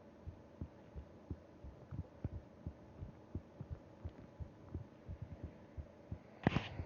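Human heartbeat heard through the chest, a steady run of soft low lub-dub thumps. Near the end a louder burst of rustling noise covers it.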